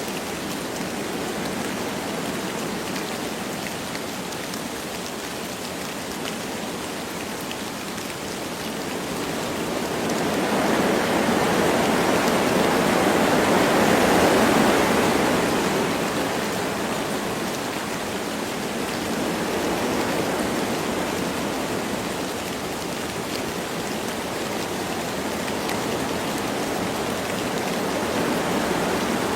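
Wind blowing through forest trees with light rain falling: a steady rushing that swells into a stronger gust about halfway through, then dies back down.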